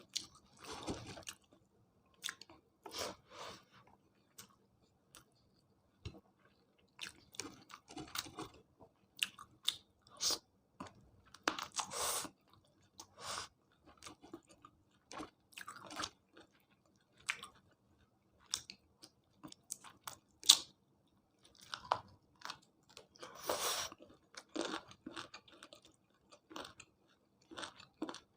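Close-miked eating: a person chewing, with crisp crunching bites and mouth sounds in irregular bursts and short pauses.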